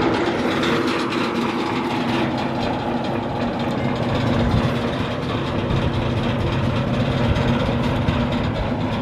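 Natural gas engine driving an oil well pumpjack, running steadily.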